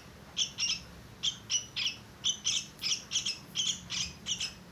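Small young birds chirping over and over, short high chirps about three a second.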